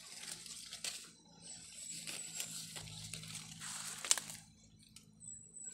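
Leaves and a rambutan branch rustling as fruit clusters are handled, with scissors snipping at the stems; the sharpest snip comes about four seconds in.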